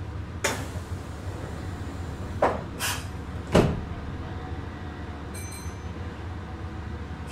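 Passenger doors of a Meitetsu 6800 series train shutting at a station stop: four thumps over about three seconds, the last the loudest, against the steady low hum of the standing car. A brief high electronic tone follows a couple of seconds later.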